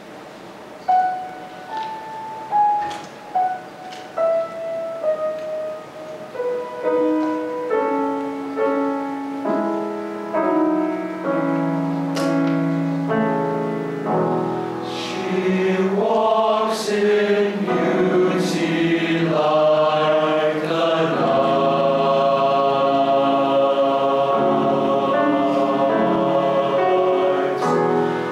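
Grand piano plays a solo introduction of separate notes in a stepping, descending line that thickens into chords. About halfway through, a large mixed choir comes in singing sustained harmony over the piano.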